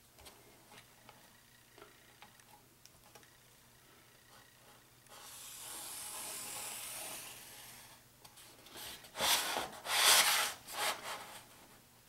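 Marker pen drawn along the edge of a square on cardboard, a steady scratchy hiss lasting about three seconds, after faint taps and clicks of handling. Near the end, louder scraping and rubbing as the square is slid across the cardboard, in several strokes.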